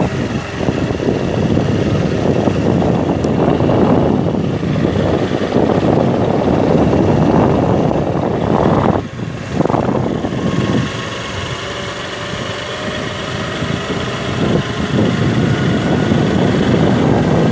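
Wind buffeting the microphone of a rider on a moving motorbike, with the motorbike's engine running underneath. The wind noise drops briefly about nine seconds in, and a faint engine note rises a little later on.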